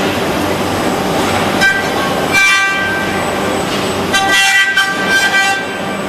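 Steady machine noise from a six-axis robot cell cutting and finishing a plastic car dashboard. Twice, for about a second each, a high multi-tone whine rises over the noise.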